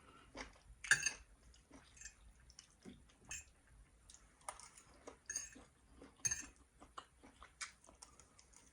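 Close-miked chewing of food: soft, irregular mouth smacks and clicks.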